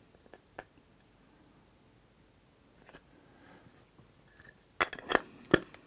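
Small handling noises from a man's hands working a silicone wristband and a small plastic lens part: a few faint ticks, then a short run of sharper clicks and knocks near the end as the parts are handled and moved against the table.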